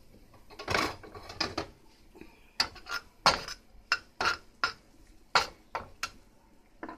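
A cooking utensil knocking and scraping against a frying pan as sliced bell peppers are stirred: about a dozen sharp clacks at uneven intervals.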